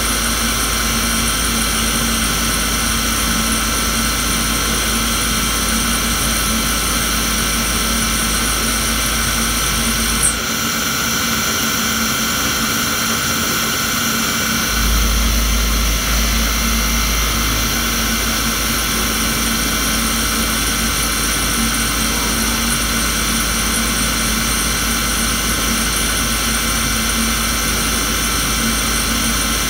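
Mazak QTN-350-IIMY CNC lathe with Y axis running a turning and grooving cut on a metal shaft. It gives a steady machine din with several fixed high whines and a low hum. A short click comes about ten seconds in, after which the low rumble drops away for a few seconds and then returns.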